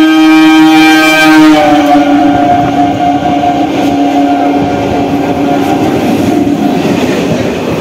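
An EMU local train's horn sounding one long chord that drops in pitch about a second and a half in as the train passes, then stops near the end. Under it is the train's steady running rumble as it runs through the station.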